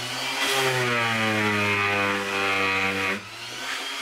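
Electric random orbital sander running steadily on a wooden panel, its motor hum mixed with the hiss of the pad on the wood. The sound drops away about three seconds in.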